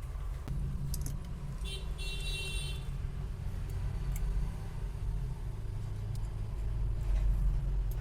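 Steady low rumble of road traffic, with a brief high tone about two seconds in and a few faint clicks.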